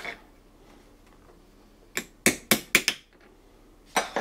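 A quick run of about five sharp metallic clicks and knocks, about two seconds in, from engine parts or tools being handled on the workbench.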